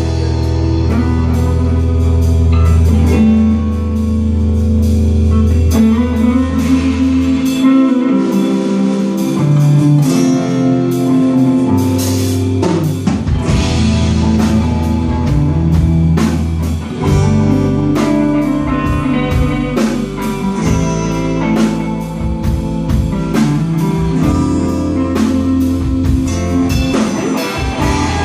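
Instrumental break of a rock song: guitars over a steady drum-kit beat, with no singing. The deepest bass drops away for several seconds in the middle before coming back in.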